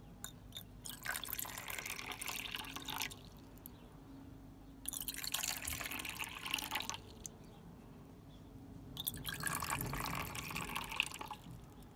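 Water poured from a clear pitcher into small cups, three separate pours of about two seconds each with short pauses between.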